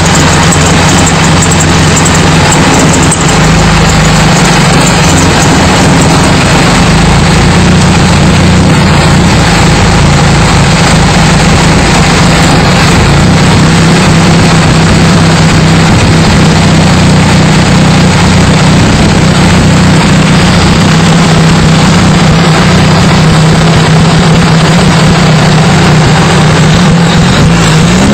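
A 1989 Nissan Sentra's 1.3-litre four-cylinder engine idling steadily, heard close up in the open engine bay.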